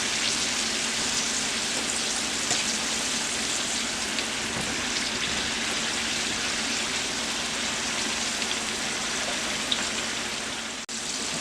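Sweet potato fries deep-frying in hot oil: a steady sizzle with fine crackling. The fries are floating to the top, almost done. The sound cuts out for an instant near the end.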